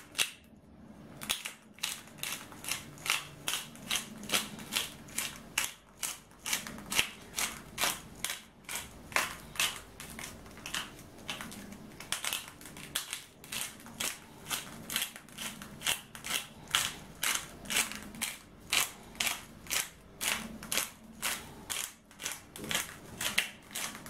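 Hand-held black pepper grinder being twisted over meat, its grinding mechanism crunching peppercorns in a steady rhythm of short rasping clicks, about two to three a second.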